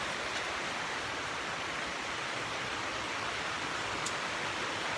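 Steady rain falling, an even hiss, with a faint tick about four seconds in.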